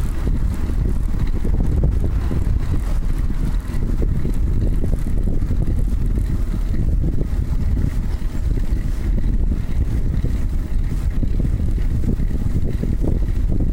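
Wind buffeting the microphone of a handlebar-mounted camera on a moving bicycle: a loud, steady low rumble that flutters constantly, with the tyres running on the paved path underneath.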